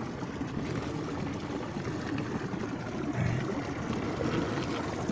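Spring water running and trickling steadily close to the microphone, with a short low vocal sound from the man about three seconds in.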